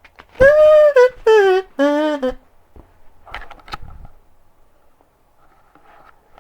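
Kazoo buzzing three notes, each lower than the last, over about two seconds, followed about a second later by a couple of short paper rustles or clicks.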